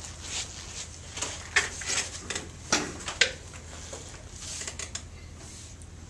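Scattered light clicks and knocks, a dozen or so short ones mostly in the first four seconds, over a steady low room hum.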